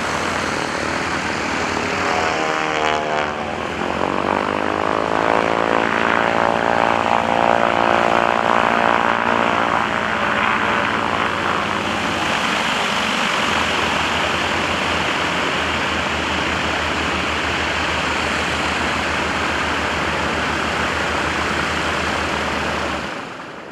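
North American SNJ-5 Texan's nine-cylinder Pratt & Whitney R-1340 radial engine and propeller droning as the plane manoeuvres. Its pitch sweeps up and down, loudest a few seconds in, and the sound drops away near the end.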